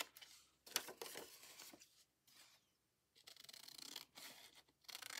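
Scissors cutting through scrapbook paper: a few faint separate snips with paper rustling between them.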